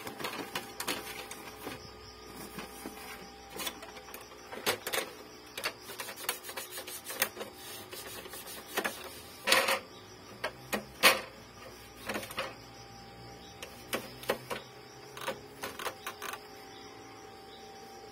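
Irregular clicks, taps and cloth rubbing as the plastic casing and ink-tank unit of an opened Epson L3110 inkjet printer are wiped and handled, with a faint steady hum underneath. A longer scraping rub comes just past the middle, and a sharp knock soon after is the loudest sound.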